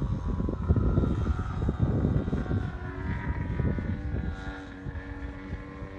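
Radio-controlled model airplane's engine running as the plane climbs away, fading with distance. Its steady tone comes clear in the second half, after a rumble of wind on the microphone dies down. The engine runs a little rich, being broken in gently on its first flight.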